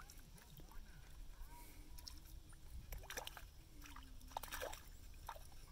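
Faint water splashing and sloshing from a small hooked fish thrashing at the surface, with a few short splashes a little past halfway.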